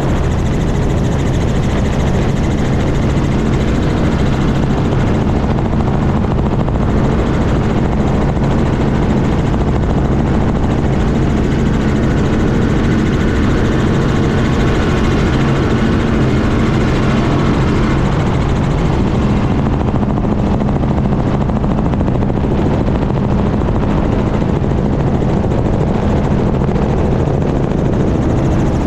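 Helicopter in flight, its rotor and engine running steadily with a low drone under a rushing noise, heard close up from a camera mounted on the helicopter's underside.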